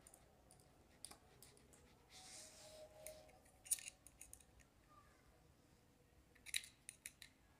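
Faint clicks and scrapes of a small screwdriver on the terminal screw of a plastic one-way switch as a wire is fastened in, with a sharp click about halfway through and a quick run of clicks near the end.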